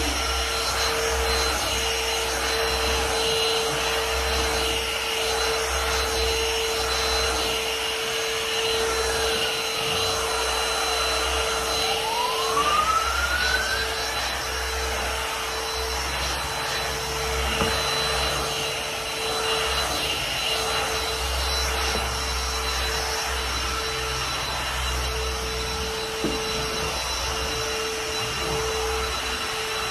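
Stick vacuum cleaner running steadily as it is pushed over carpet, a constant motor whine over the rush of air. A brief rising whistle comes about halfway through.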